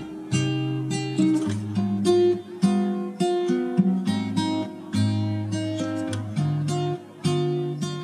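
Background music: an acoustic guitar playing a plucked, picked tune of one note after another.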